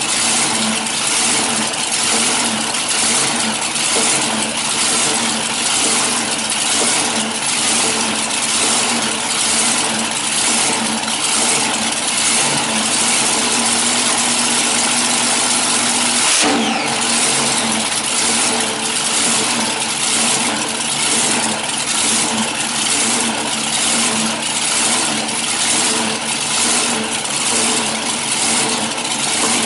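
Supercharged V8 of a front-engine dragster running at a fast idle, its sound surging and easing in a steady rhythm about once a second, with a steadier stretch near the middle broken by a brief sharp change. The engine is warming up, which takes a long time.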